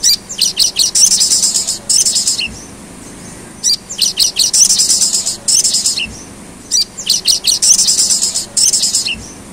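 A sogon (sunbird) singing in three bouts of rapid, high chattering notes, each about two and a half seconds long and ending with a lower slurred note.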